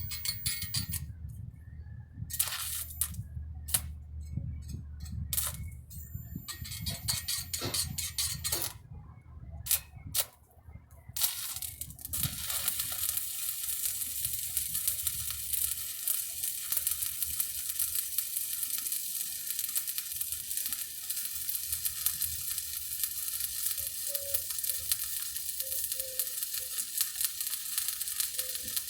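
A few sharp clicks and knocks, then, from about twelve seconds in, the steady crackling sizzle of a stick-welding arc as a 7018 electrode burns in a vertical-up weld.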